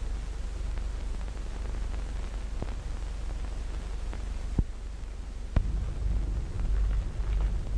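Steady hiss and low hum of an early-1930s film soundtrack, with a few scattered clicks and pops.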